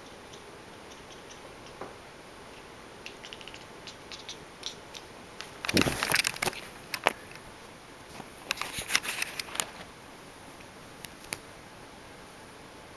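Handling noise from a handheld camcorder being moved: scattered small clicks, then two bursts of rustling and scraping about six and nine seconds in, over a steady faint hiss.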